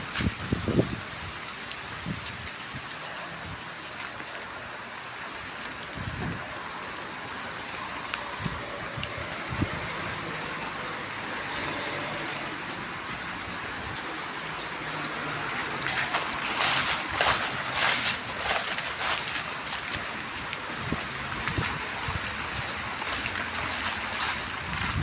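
Rain falling: a steady hiss with scattered drops, thickening into a heavier spell of drops about two-thirds of the way through.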